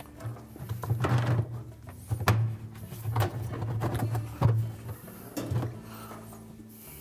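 Plastic washer tub cover being worked down onto the outer tub: rubbing and scraping of plastic on plastic with about five sharp knocks, dying away near the end.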